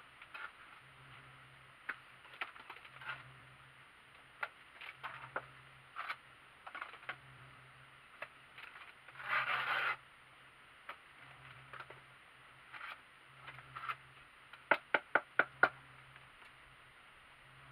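Plastering trowel working render mortar onto a window reveal: short scrapes and clicks of steel on mortar and board, a longer scrape of about a second around nine seconds in, and a quick run of six sharp taps about fifteen seconds in.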